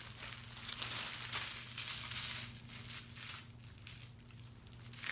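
Small plastic bags of diamond-painting drills crinkling and rustling as they are handled, in irregular bursts, loudest for a stretch about a second in.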